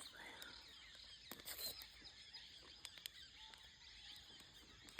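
Near silence: faint jungle ambience with a few soft clicks and faint high chirps.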